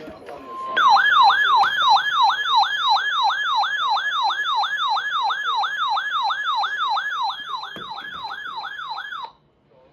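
A weather alert radio's electronic siren alarm going off for a severe thunderstorm warning: a brief steady tone, then a falling sweep repeating about three times a second that cuts off suddenly near the end.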